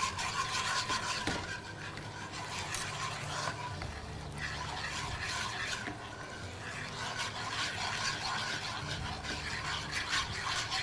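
A whisk stirring and scraping in a ceramic pan in quick, irregular strokes as a starch-and-water mixture heats and thickens into a gel. A steady low hum runs underneath.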